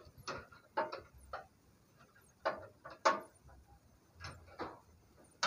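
Irregular clicks, knocks and short rattles of hand tools at work on metal fittings and wooden crate boards, about a dozen strokes at uneven spacing.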